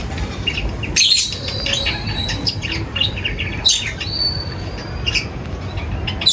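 Small birds chirping and calling in quick short notes, with bursts of sharp chirps about a second in and again near four seconds, and a couple of held whistled notes. A steady low rumble runs underneath.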